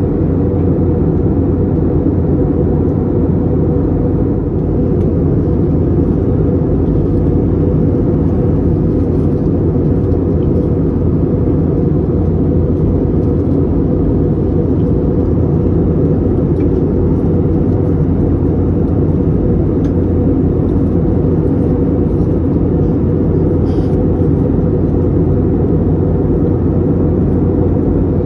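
Steady cabin noise inside an Airbus A321neo in flight: an even, deep rumble of engines and airflow with no change in pitch or level.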